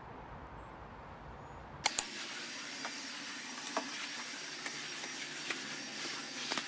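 A low steady rumble, then about two seconds in two sharp clicks and a cordless stick vacuum cleaner running: a steady high hiss with a thin high whine and scattered small ticks.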